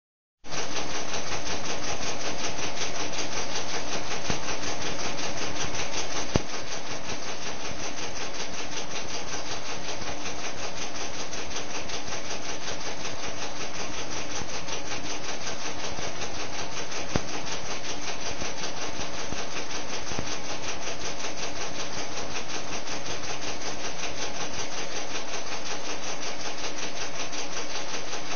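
Vacuum pump running steadily, a loud even rushing noise with a low hum, starting abruptly about half a second in. Two sharp single clicks, about 6 and 17 seconds in, are proton-beam particles striking the webcam's audio circuit.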